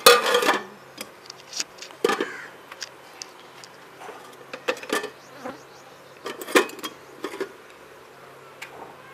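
Steel cooking pots, lids and a ladle clanking and knocking against each other as they are handled and set down, in separate sharp strikes every second or two, with a steady low buzz underneath.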